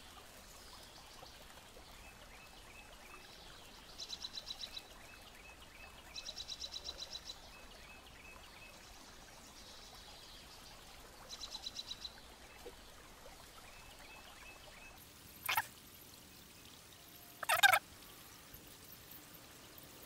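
Sharp knocks of laser-cut MDF pieces being pressed together, twice near the end, the second louder. Earlier, a high, rapid trill sounds three times in short bursts.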